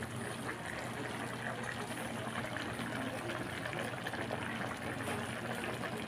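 Coconut-milk sauce bubbling at a simmer in a wok over a gas flame: a steady bubbling dotted with many small pops, over a low steady hum.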